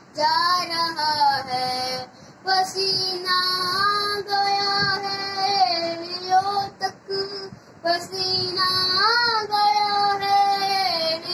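A young boy singing a devotional song in praise of Ali (a manqabat) in long, drawn-out melodic phrases. He pauses briefly for breath about two seconds in and again around seven to eight seconds.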